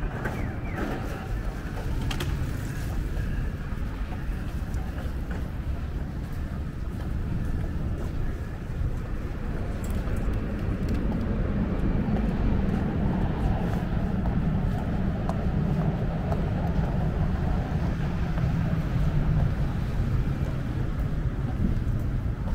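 Town street ambience: a steady low rumble of traffic, a little louder in the second half.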